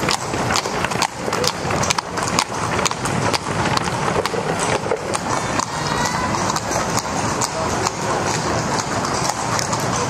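A horse's hooves clip-clopping on stone cobbles as it trots past pulling a carriage, a steady beat of sharp clops that grow sparser and fainter after about halfway, over crowd chatter.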